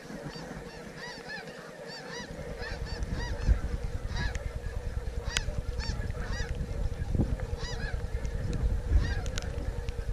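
Many overlapping snow goose calls, short high honks and yelps tumbling over one another, over a low wind rumble on the microphone. Two sharp thumps stand out, one a few seconds in and one near the end.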